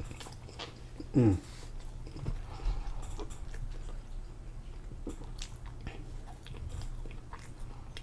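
Close-miked chewing and biting of food, with many small crunchy, wet clicks. About a second in comes a short hum that falls in pitch.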